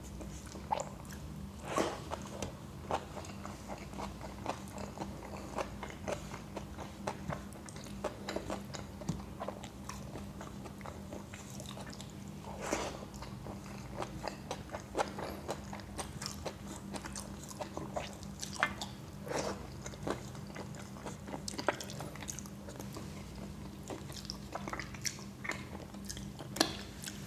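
A person eating close to the microphone: chewing and biting, with many small sharp mouth clicks and occasional crunches, over a steady low hum.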